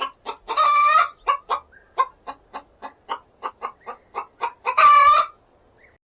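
Hen cackling: a run of short clucks about four a second, twice rising into a long, loud squawk.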